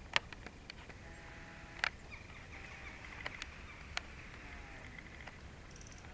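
About half a dozen sharp, dry clicks and crackles, scattered irregularly over a steady faint hiss: European goldfinches pecking and cracking sunflower seeds among dry stalks.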